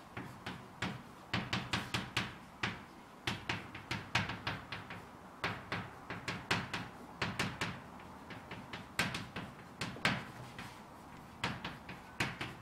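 Chalk writing on a blackboard: a quick, irregular series of sharp taps and short scratches as each stroke of the characters is made, easing off briefly about two-thirds of the way through.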